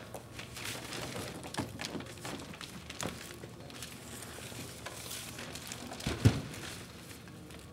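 Rustling, scraping and knocking as a large box is lifted and moved, with loose papers shuffling, and one sharp thump about six seconds in.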